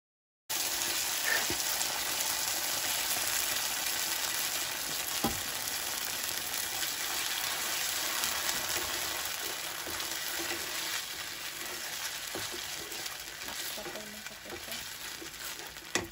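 Hot oil with chopped garlic sizzling in a frying pan as hot sauce is poured in and stirred with a wooden spatula. The sizzle starts abruptly about half a second in and slowly dies down toward the end, with a few light taps of the spatula against the pan.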